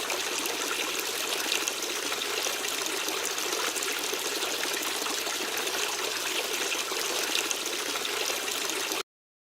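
Waterfall water falling and splashing in a steady rush, which cuts off abruptly about nine seconds in.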